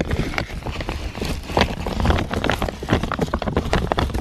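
Ferrets scrabbling and bumping right at the microphone: a rapid, irregular run of knocks and scratches over a low rumble of handling noise.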